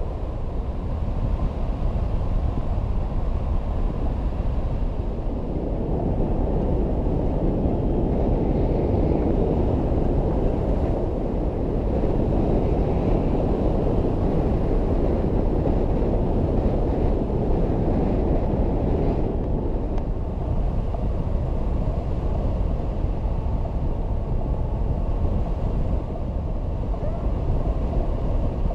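Steady, muffled rush of wind buffeting a GoPro microphone on a hang glider in flight.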